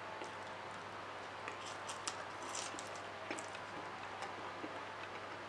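Faint sounds of instant cup ramen being eaten with chopsticks: a scatter of short slurps and clicks from the mouth and chopsticks over a steady low hum.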